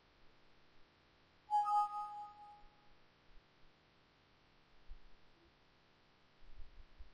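A single electronic chime about one and a half seconds in: one bell-like note that rings out and fades within about a second. Faint low knocks follow near the end.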